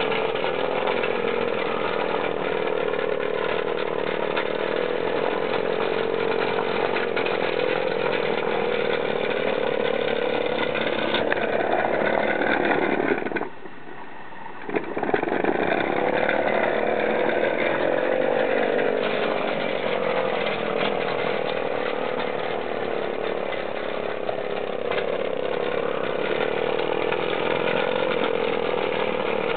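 Homemade live-steam model tractor's engine running fast, a steady mechanical buzz whose pitch drifts up and down. About halfway through it drops away for a second and a half, then starts again sharply.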